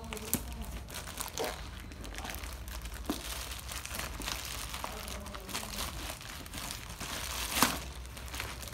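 Clear plastic parcel wrapping crinkling and tearing as it is cut open with scissors and pulled off a cardboard box. A continuous crackly rustle runs through it, with a few sharp crackles; the loudest comes near the end.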